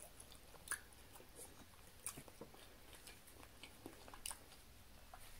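Faint chewing of a mouthful of lasagna, with scattered small clicks and mouth noises.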